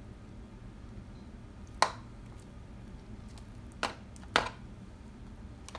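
A plastic serving spoon knocking and scraping against a disposable aluminium foil pan while sauce is spooned over the enchiladas: three short sharp knocks, the last two about half a second apart, over a low room hum.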